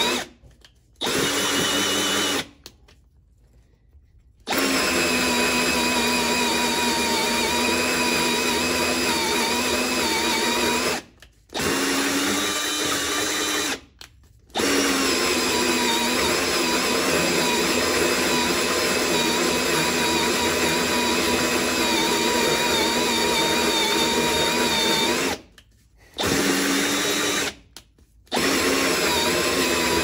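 Power drill driving a hole saw through a boat's fiberglass hull. It runs with a steady whine and stops and restarts six times, in short breaks between long cutting runs.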